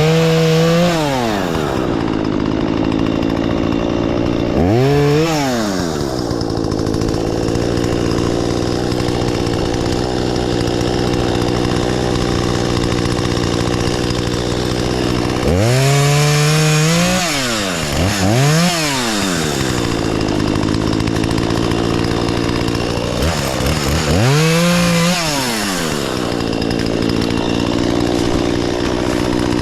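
Two-stroke chainsaw idling, revved up and let fall back to idle about four times, the revs coming once near the start, once about five seconds in, twice in quick succession around the middle, and once more late on.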